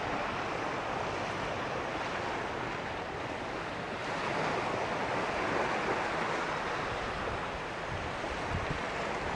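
Small surf washing onto a sandy beach, a steady wash that swells a little about halfway through, with wind on the microphone adding low rumbles near the end.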